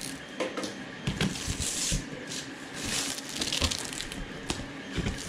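Packaging being handled: rustling and sliding of wrapping in several short swells, with a few soft knocks.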